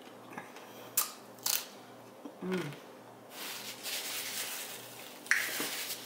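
A paper napkin crinkling and rustling as it is rubbed between the hands to wipe them, starting about halfway through. Before that there are a couple of sharp clicks.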